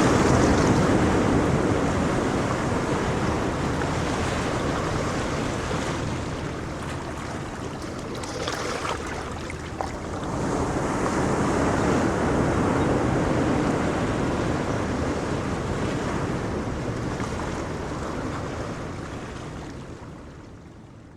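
Sea waves breaking and washing ashore, a steady rush that swells, ebbs and swells again, then fades out near the end.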